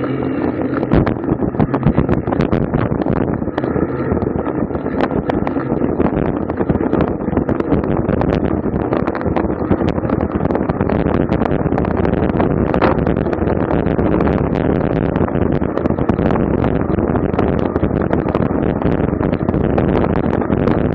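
Wind buffeting the microphone of a camera mounted on a racing bicycle at speed, a dense steady rush broken by quick rattles and clicks from the bike over the road.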